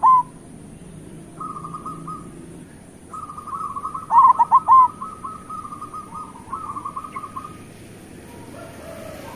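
Zebra doves (perkutut) cooing: soft rolling trills held on one pitch, repeated in phrases, with a loud run of about four short notes that hook downward about four seconds in.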